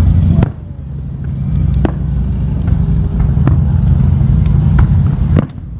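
Aerial fireworks display: a continuous deep rumble of shell bursts with sharp cracks on top, one about half a second in, several scattered through, and two close together near the end.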